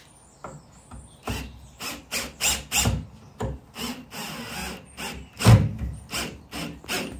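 Cordless drill-driver driving a screw through a bifold door frame into the timber opening, in a run of short, uneven bursts with scraping and squeaking as the screw bites, about three a second. The loudest burst comes a little after five seconds in.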